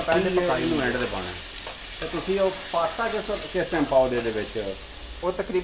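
A shrimp, zucchini and tomato sauce sizzling in a stainless frying pan while a spatula stirs and scrapes through it.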